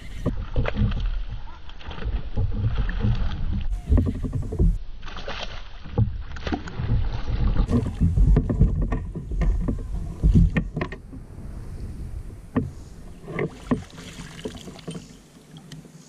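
Sounds of fighting a hooked smallmouth bass from a fishing kayak: a low rumble with scattered knocks and clicks from handling the rod, reel and kayak, growing quieter over the last few seconds.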